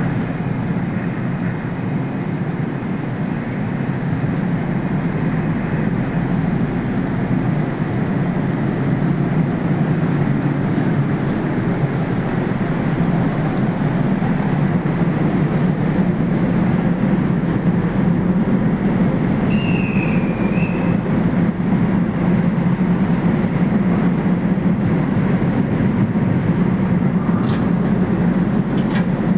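A passenger ship's engines running with a steady low rumble while it manoeuvres alongside the pier. It swells a little over the first few seconds. A short high chirp sounds once about twenty seconds in.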